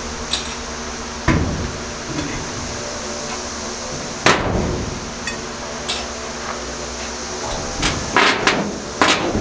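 Steel pry bar knocking and clanking against old nails and the wall as the nails are levered out: a string of sharp knocks, the loudest about four seconds in and several close together near the end, over a steady background hum.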